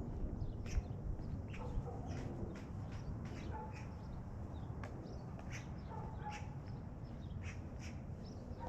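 Birds calling in short, scattered chirps over a steady low rumble.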